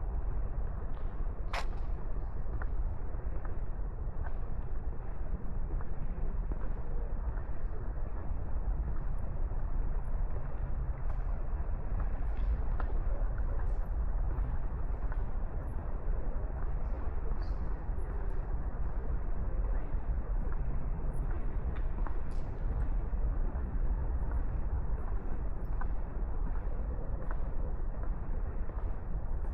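Outdoor city ambience in light rain: a steady low rumble and hiss, with scattered faint ticks and one sharp click about a second and a half in.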